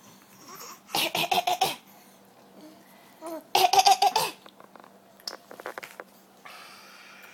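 A five-and-a-half-month-old baby laughing in two loud bursts of quick, pulsing laughter, about a second in and again about three and a half seconds in.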